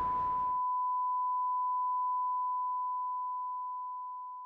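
A single steady high-pitched electronic tone, one unbroken beep added as a sound effect. The background noise drops out under a second in, leaving the tone alone, and the tone slowly fades away toward the end.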